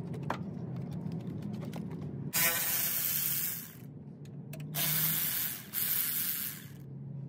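Cordless power ratchet spinning a socket on the battery hold-down nuts, in three runs of about a second each, starting about two seconds in. Before them come a few light clicks of the tool being handled.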